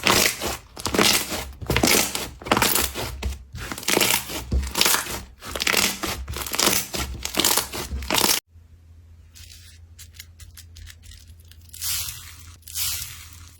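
Slime being squeezed and pulled, with rapid, dense crackling and popping. About eight and a half seconds in it cuts off suddenly to a quieter clip of faint clicks over a low hum, with a few louder crackles near the end.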